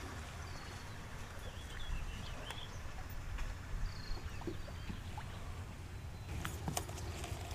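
Faint bird chirps, a few short calls about two and four seconds in, over a low steady rumble, with a few light clicks near the end.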